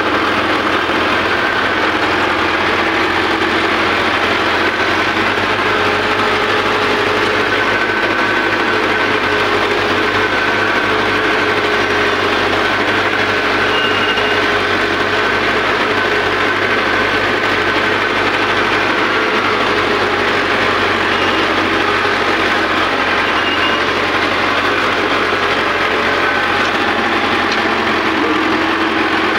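Tractor diesel engine running steadily under way, its pitch rising and falling slightly as the engine speed shifts.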